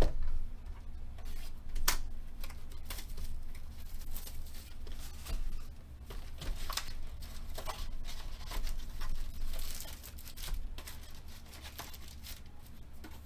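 Plastic shrink-wrap being torn and crinkled off a Panini Select trading-card hobby box, and the cardboard box opened. It comes as irregular crackles and sharp clicks, with a thump right at the start.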